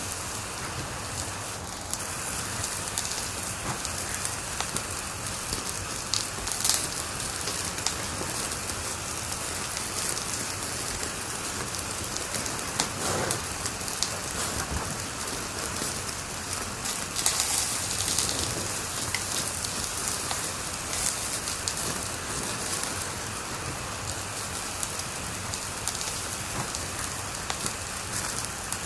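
Wood fire crackling in a fireplace: a steady hiss thick with small pops and snaps, with a few louder flurries of crackles.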